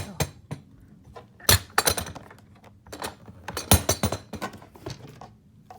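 Hard plastic Ridgid modular toolbox being worked open: a series of sharp clacks and knocks, about five in all, as the top box is unlatched and pulled free, with lighter clinking and clatter between them.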